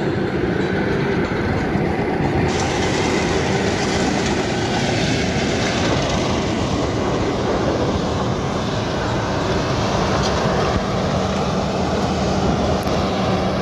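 Rice combine harvester running steadily in the paddy: a continuous heavy engine-and-machinery noise with a faint steady hum.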